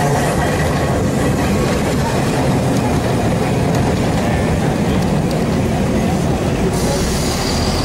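Vintage Porto electric tram, running on its largely original trucks and electrical equipment, heard from inside the car: a steady rumble of wheels on rail and motors. A thin high whine joins near the end.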